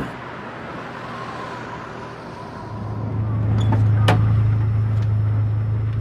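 A van's engine running with a steady low hum that swells in about two and a half seconds in, after a faint hiss of open air. Two sharp clicks come about a second after the hum starts.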